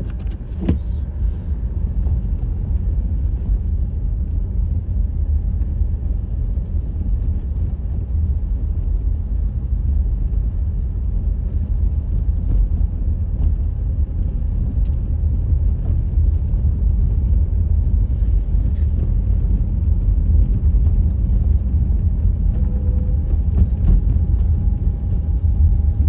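Steady low rumble of a car heard from inside the cabin as it drives slowly, about 20 mph, on a snow-covered road: engine and tyre noise.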